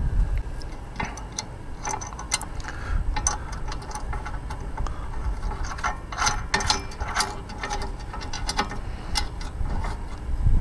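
A ratchet wrench clicking in irregular runs as it tightens a 3/4-inch nut and lock washer onto a bolt on a steel hitch bike rack's frame, with the clicks thickest a little past halfway.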